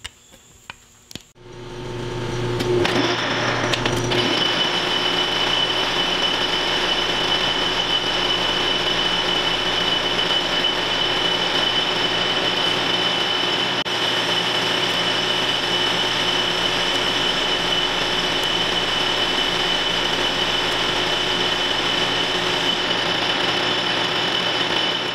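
Metal lathe turning a shaft while a small-radius carbide insert plunges and cuts along it: a few light clicks at first, then the lathe starts about a second in and settles into a steady cutting noise with a high whine running through it.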